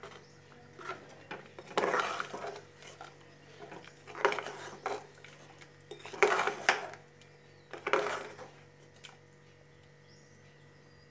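Metal ladle stirring curry in a pressure cooker pot, scraping and clinking against the metal sides in four short bursts, then going quiet near the end.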